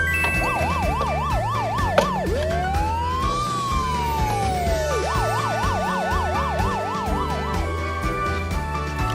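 Siren sound effect: a fast up-and-down yelp, then one slow rise and fall, then the fast yelp again, over background music with a steady beat.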